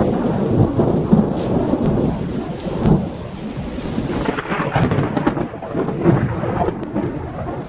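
Thunderstorm sound effect: thunder rumbling with louder swells over steady rain.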